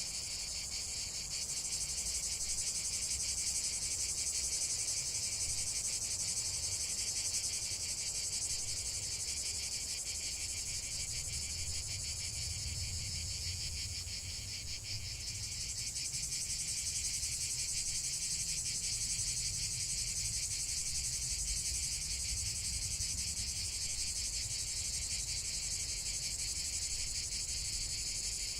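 A dense chorus of insects, crickets or similar, trilling steadily and high-pitched without pause.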